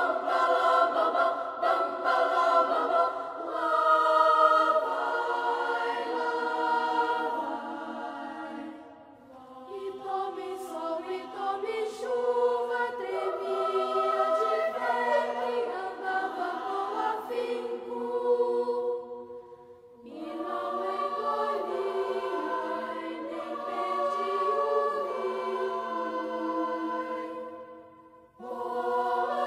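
Children's choir singing in several parts, in phrases with short breaks about nine seconds in, about twenty seconds in, and near the end.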